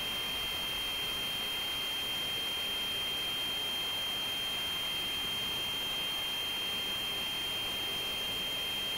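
A steady high-pitched whine, one unchanging tone held over a faint even hiss.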